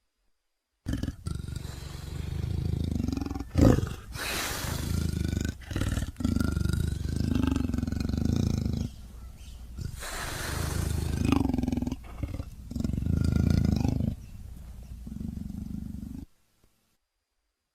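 Velociraptor creature sound effect: a long run of low growls with higher screeching cries over them, with sharp louder bursts about four and eleven seconds in. It starts about a second in and cuts off abruptly near the end.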